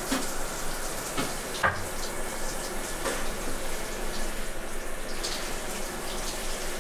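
Water running steadily from a tap into a bathroom sink as someone washes at it, with a few short knocks and splashes.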